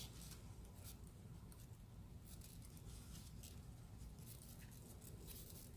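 Faint, short scratchy rustles of cotton-gloved hands working a loop of fishing line around a succulent's stem, a few scattered scrapes over a low steady rumble.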